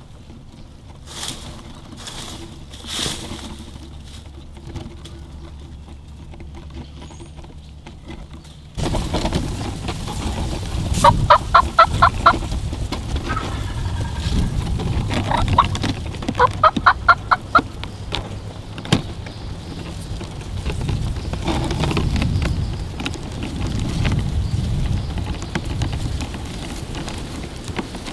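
Turkey calling: three runs of quick, evenly spaced notes, each a second or so long, about eleven, fifteen and seventeen seconds in. From about nine seconds in they sit over a steady rushing noise that starts abruptly.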